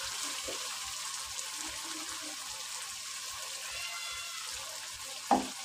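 Potatoes and aubergines frying in oil in a wok with a steady sizzle, as a little water is poured in from a steel tumbler around four seconds in. A single short knock sounds near the end.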